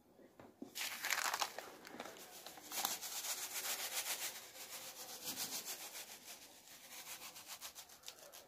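Folded sheet of stiff paper rustling and scraping as it is tipped and tapped to sprinkle dragon fruit seeds onto potting soil. It starts about a second in as a dense run of fine rustles, loudest in its first couple of seconds, then carries on more softly.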